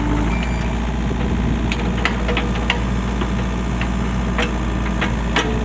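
Excavator's diesel engine running steadily, with a few short sharp knocks and cracks scattered through the middle and near the end.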